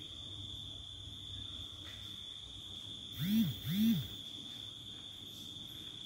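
Two short squeaks about three seconds in, each rising then falling in pitch, as a wall cupboard door is swung open, over a steady high-pitched cricket trill.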